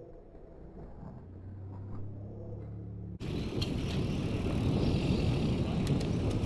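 Faint low hum for about three seconds, then an abrupt cut to steady wind rush on a bike-mounted camera's microphone and tyre noise from mountain bikes rolling along an asphalt road, with a few sharp ticks near the end.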